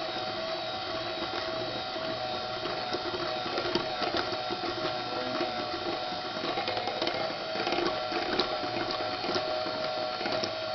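Electric mixer running steadily on low speed, its beaters working cheesecake filling mix and cold milk, with a constant motor whine and scattered light clicks.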